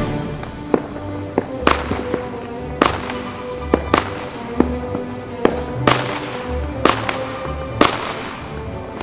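Fireworks going off, a string of sharp bangs and cracks roughly once a second, over music with steady held notes and a regular low beat.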